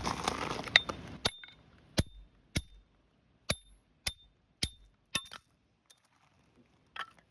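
About eight sharp metallic clinks, each with a brief high ring at the same pitch, spaced about half a second to a second apart. They come after about a second of rustling and stop a little past the middle.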